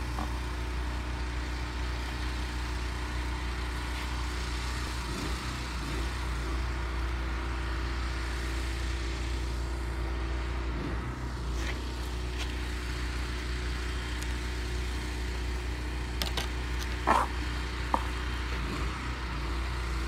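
Steady low engine drone of pipe-bursting equipment running while new pipe is pulled through the split old line. Two sharp clicks stand out near the end.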